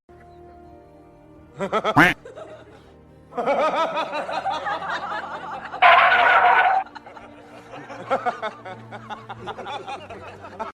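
Background music, joined from about three and a half seconds in by laughter, loudest for about a second near six seconds.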